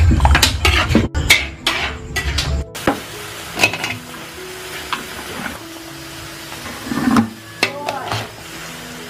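Metal ladle scraping and clinking against a wok while stirring vegetables in a sizzling sauce, with many quick clicks; after about two and a half seconds it settles to a quieter sizzle with occasional clinks. Soft background music underneath.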